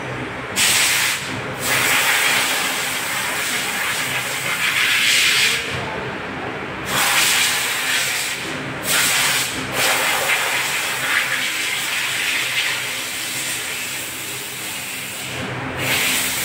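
Compressed air hissing steadily over a low machine hum. The hiss swells into louder blasts about half a second in, again from about four to five and a half seconds, twice between seven and ten seconds, and near the end.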